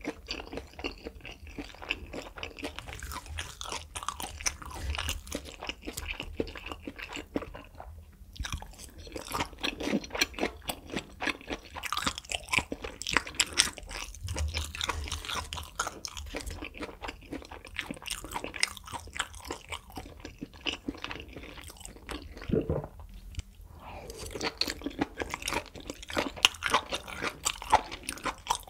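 Close-miked chewing of grilled beef intestine (makchang), a dense run of short wet clicks and crackles. There are brief lulls about 8 and 23 seconds in.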